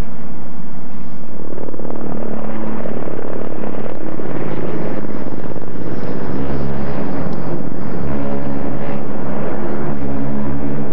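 Loud steady noise, then about six seconds in a ship's horn sounds a long, deep, steady blast.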